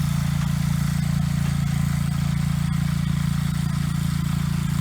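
Small garden tractor engine running steadily at a constant speed, with an even low pulsing note.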